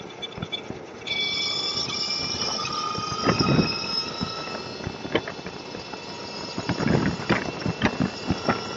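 Motorcycle moving through slow freeway traffic, filtering between lanes: road and wind noise with steady high whining tones that come in about a second in, and scattered sharp knocks.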